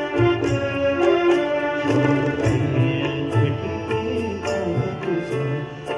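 Live Marathi song performance: harmonium and keyboard melody over tabla, with a male voice singing from a few seconds in.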